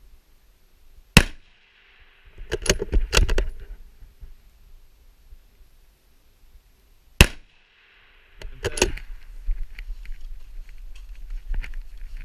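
Two rifle shots from a 6mm Creedmoor bolt-action rifle, about six seconds apart. Each is followed about a second later by a quick clatter of metallic clicks as the bolt is worked to chamber the next round, with lighter clicks and handling noise near the end as the rifle is shifted on the barricade.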